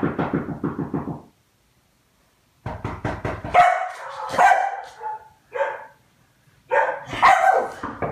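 A dog making a short rattling run of sound, then after a brief pause barking and yipping in several bursts.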